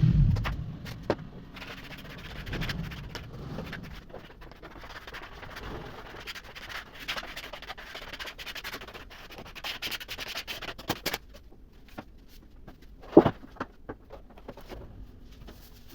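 Irregular rubbing and scraping on wood, broken by scattered small clicks, with one sharp knock about 13 seconds in.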